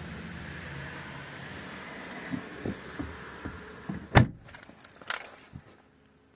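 A steady low hum dies away. Then come a run of clicks and knocks and one heavy thump, like a car door being shut, followed by a lighter knock about a second later.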